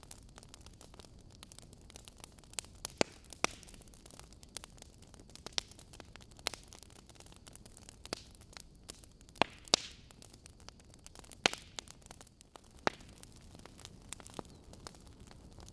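Wood fire burning in a fireplace: burning logs crackling and popping with irregular sharp snaps over a steady low hiss, the loudest pops a few seconds apart.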